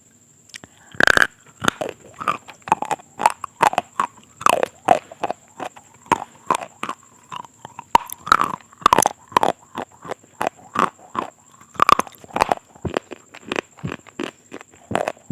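Close-miked ASMR eating: a person biting and chewing crunchy food. A loud first bite comes about a second in, then a quick, steady run of crunches, several a second.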